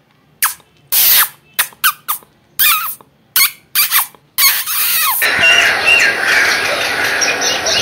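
A run of about nine short, high mouse-like squeaks with sliding pitch. From about five seconds in they give way to a steady hiss with faint chirps.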